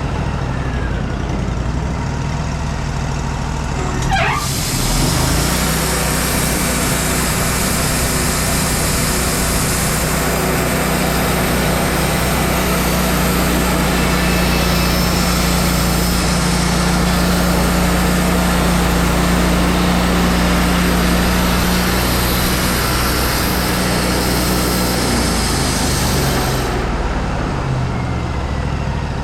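Wood-Mizer LT40 band sawmill with its engine running steadily; about four seconds in the blade engages and saws through a madrone log, adding a dense, steady hiss of cutting over the engine for about twenty seconds. The hiss stops a couple of seconds before the end as the blade clears the cut, leaving the engine running.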